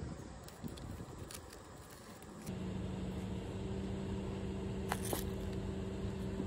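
A steady low mechanical hum with a constant tone comes in abruptly a couple of seconds in, after a quieter stretch with a few faint clicks; two brief clicks sound about five seconds in.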